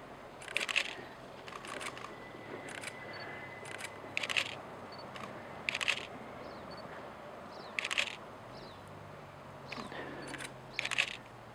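Camera shutters firing in short rapid bursts every two to three seconds, each burst a tight run of sharp clicks, over a steady rush of water as elk splash across a river.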